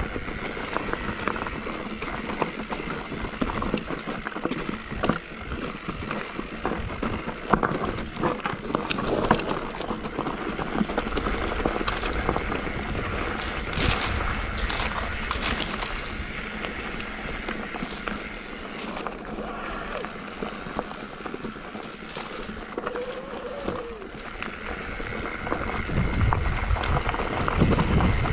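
Mountain bike riding fast down a rough enduro trail: tyres crunching over dirt and rocks, with the bike rattling and knocking constantly. It grows louder near the end.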